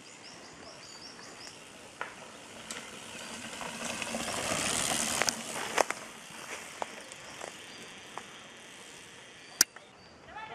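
Downhill mountain bike passing along a dirt forest trail: tyre and rolling noise swelling to a peak about five seconds in, then fading, with scattered knocks and rattles from the bike. Birds chirp near the start, and there is one sharp click near the end.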